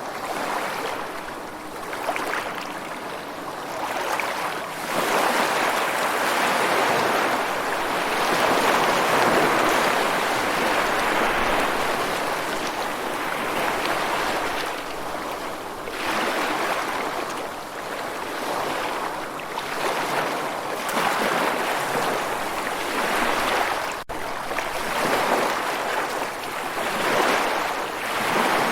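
Ocean surf: waves washing in and receding, the rushing noise swelling and fading every few seconds.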